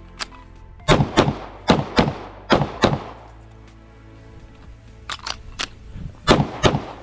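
Pistol shots fired in quick pairs during a timed course of fire: about six shots in two seconds, a pause of about two seconds, then another fast string near the end.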